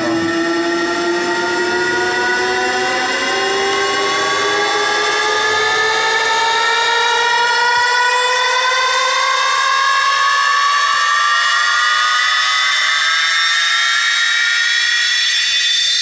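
boAt Stone 1500 portable Bluetooth speaker playing a loud synth tone with overtones that climbs slowly and steadily in pitch, the build-up at the start of a DJ sound-check track.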